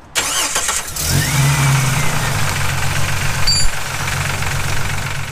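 A Jeep Wrangler TJ engine starting: a burst of cranking noise, then it catches about a second in and runs steadily at idle.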